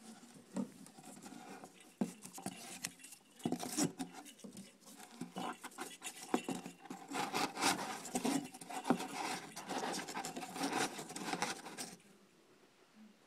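A kitten scrambling inside cardboard boxes: claws scratching and paws pattering on cardboard in quick irregular scrapes and taps, which stop about a second before the end.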